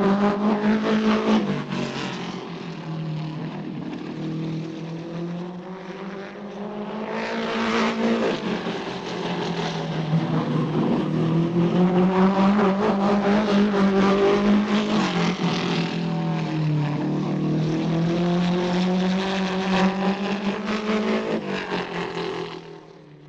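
Cartoon motor sound effect: an engine running with its pitch wavering up and down, dropping back after a couple of seconds, swelling louder again about a third of the way in, then fading out at the end.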